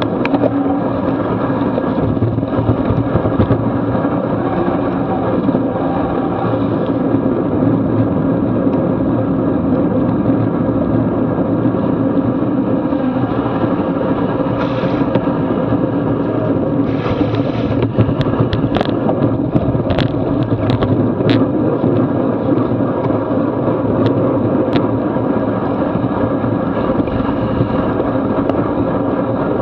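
Steady rush of wind and road noise from a road bicycle moving at speed on wet asphalt, heard through a bike-mounted action camera. A few sharp clicks and knocks come in the second half.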